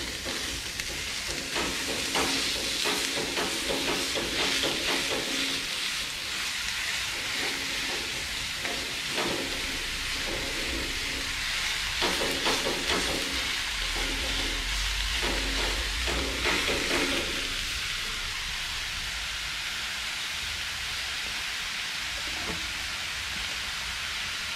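Ground beef sizzling in a cast iron skillet with onion and celery, while a wooden spatula scrapes and knocks in the pan breaking up the meat. The scraping stops about three quarters of the way through, leaving a steady sizzle.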